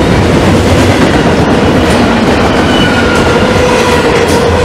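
Double-stack intermodal freight train cars rolling past: a loud, steady rumble of steel wheels on rail with clickety-clack. Faint high whining tones come in during the second half.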